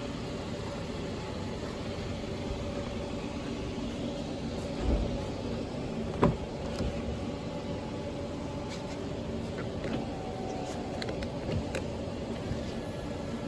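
A car engine idling steadily, with a dull thump about five seconds in, a sharper knock about a second later, and a few light clicks near the end.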